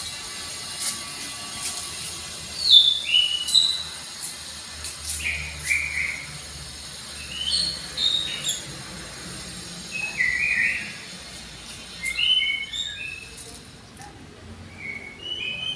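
Songbird chirping in short phrases of two or three quick notes, repeated every two to three seconds, with a few faint clicks between.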